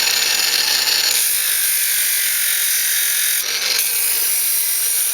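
Power grinder grinding a forged silver-steel knife blade: a loud, steady, hissing grind that turns brighter and harsher about a second in and eases briefly around three and a half seconds in.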